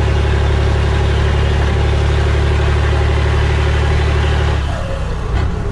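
Scania 112 truck's diesel engine running steadily under way, with a steady whine above the engine note; near the end the engine note drops away briefly and then picks up again.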